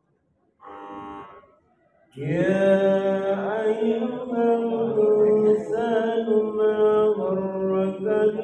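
A young woman's voice reciting the Qur'an from memory in a melodic chanted style, holding long notes. A short soft phrase comes about half a second in, and louder continuous recitation follows from about two seconds in.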